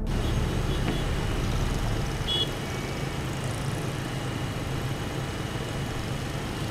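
Small motorbike's engine running steadily as it rides along a road, with the sound of passing car traffic.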